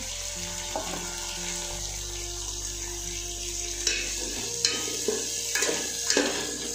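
Cauliflower florets and long beans sizzling as they fry in hot ghee in a metal pot. From about four seconds in, a metal spoon scrapes and knocks against the pot as the vegetables are stirred.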